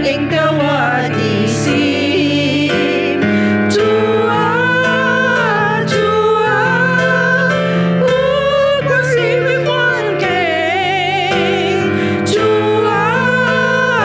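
Worship song sung by women's voices into microphones, with vibrato, over steady instrumental accompaniment with a light beat.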